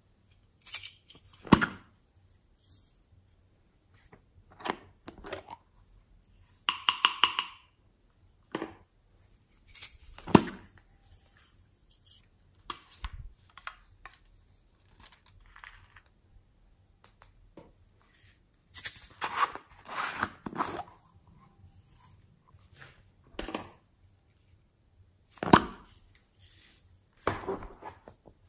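Hard plastic toys and containers handled by hand: scattered clicks, taps and rustles with short pauses between them, and a quick rattling run of clicks about seven seconds in.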